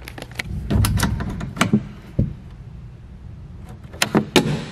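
Plastic glove box lid on a boat's passenger console being handled, unlatched and lifted open. A few scattered knocks and clicks are followed near the end by a quick run of three sharp clicks as the latch lets go and the lid swings up.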